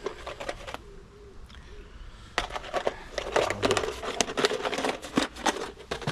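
Tools and items being handled and moved about in a toolbox. There are a few light clicks, then a quieter spell, then a busy run of clicks, knocks and rattles from about two and a half seconds in.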